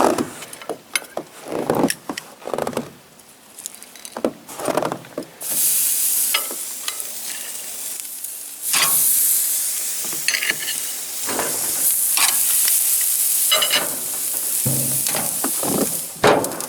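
Meat sizzling in a hot frying pan, with clatter and scraping from handling in the pan for the first few seconds. The sizzle then settles into a steady hiss from about five seconds in and grows louder around nine seconds, with scattered pops and clicks.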